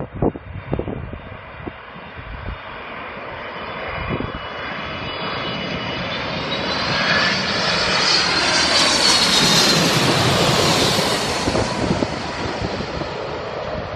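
Boeing 747 jet airliner on landing approach passing low overhead, gear down: the engine noise swells over several seconds, peaking about ten seconds in with a high whine that drops in pitch as it passes, then begins to fade. Wind buffets the microphone near the start.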